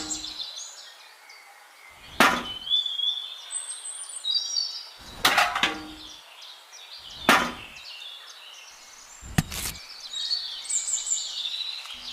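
About four sharp knocks, spaced two to three seconds apart, with birds chirping in the background between them.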